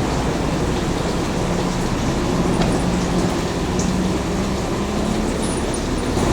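A train running: a steady rumble with a low hum that holds for a second or so at a time and shifts slightly in pitch.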